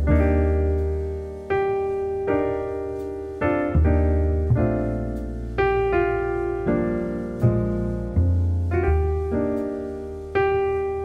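Slow solo piano music: single notes and chords struck about once a second, each ringing out and dying away before the next.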